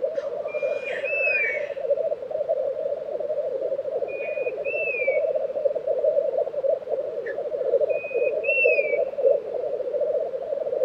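Black grouse males lekking: a continuous chorus of rolling, bubbling song. Three short whistled bird calls rise above it, each a brief level note followed by a falling slur.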